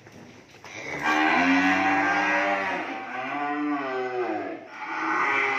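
A cow mooing: one long moo starting about a second in, its pitch bending up and down, then a second moo beginning near the end.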